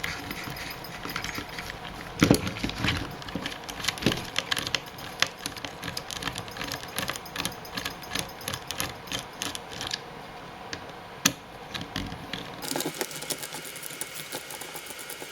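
Irregular clicking and rattling of small plastic parts and screws from a Traxxas Stampede RC truck being handled and worked apart by hand, with a couple of sharper knocks.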